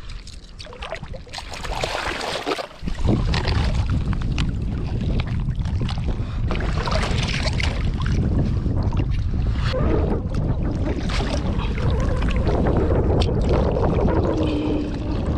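Wind buffeting the microphone in a steady low rumble, starting abruptly about three seconds in, with scattered clicks and knocks over it.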